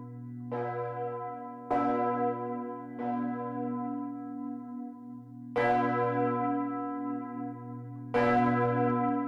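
A 2.3-ton Bochumer Verein cast-steel church bell, the tower's largest, swung by hand with ropes and struck four times by its clapper at uneven intervals. Each stroke rings out with many overtones, and a low hum carries on between strokes.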